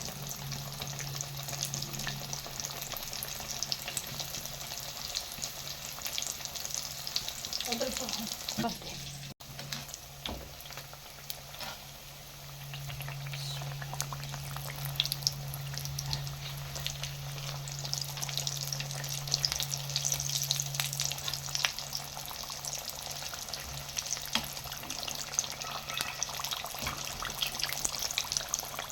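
Samosas deep-frying in hot ghee: a steady sizzle with many small crackles and pops. A steady low hum runs underneath.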